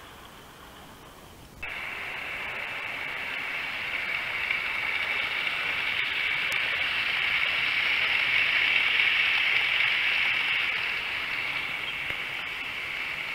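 Model train running on the layout's track, a rolling rush of wheels and motor that starts abruptly about two seconds in, swells to a peak past the middle and then fades as it passes.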